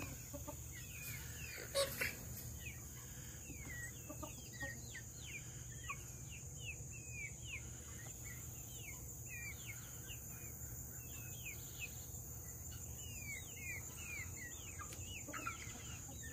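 Flock of young chickens cheeping and clucking: many short, high chirps, each a quick hooked glide in pitch, repeating all through. A steady high insect drone runs underneath, and there is one soft knock about two seconds in.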